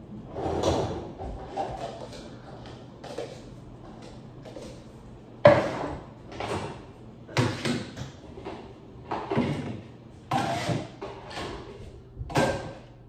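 Dishes and pots clattering and knocking as they are lifted from a dish rack and stacked into kitchen cabinets: about a dozen irregular clanks, the sharpest about five and a half seconds in.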